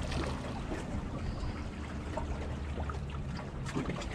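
Small waves lapping and splashing against the jetty's rocks, over a steady low rumble.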